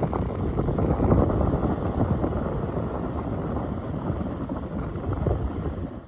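Gusty wind buffeting the microphone over small waves washing onto a sandy beach, cutting off suddenly at the end.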